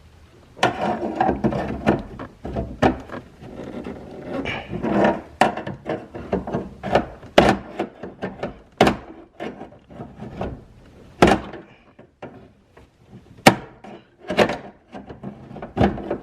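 Irregular clicks, knocks and scraping as broken window slider pieces are pushed and pried at in a car door's window track, trying to work them loose.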